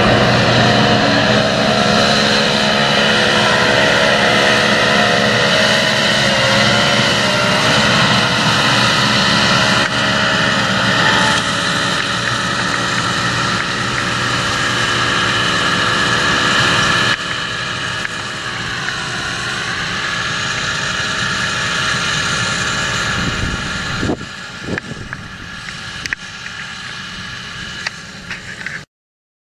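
John Deere 7230R tractor's six-cylinder diesel engine running steadily under load while pulling a seed drill. The sound drops in level about halfway through, weakens further later on, and cuts off suddenly just before the end.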